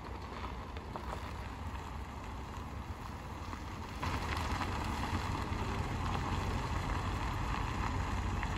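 Two cars pulling away slowly along a gravel track, engines and tyres on gravel, with wind on the microphone. It gets louder about four seconds in as the second car drives off.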